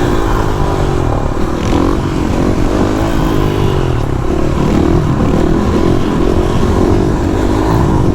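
KTM supermoto's single-cylinder engine with an FMF exhaust, revving up and down so its pitch rises and falls over and over.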